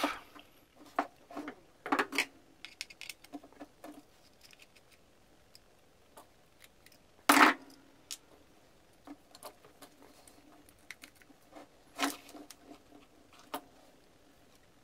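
Scattered light clicks and knocks of cast-aluminium jig saw parts being handled and set down on a workbench during disassembly, with two louder knocks about seven seconds in and about twelve seconds in.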